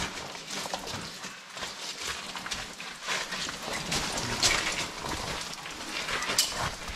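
Footsteps crunching and knocking irregularly on loose rock underfoot, with two louder scrapes past the middle.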